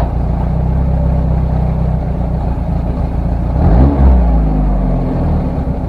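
Skoda 105 car engine idling steadily, blipped once to a quick rev and back about three and a half seconds in.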